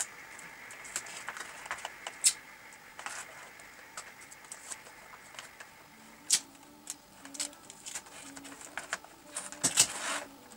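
Cardboard and paper being handled and pressed into shape: irregular sharp clicks, taps and crinkles, with a denser, louder rustle near the end.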